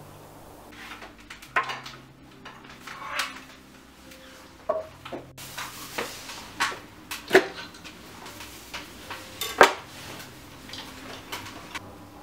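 Dishes clinking: a string of sharp clinks and knocks, a few with a short ring, the loudest about seven and a half and nine and a half seconds in.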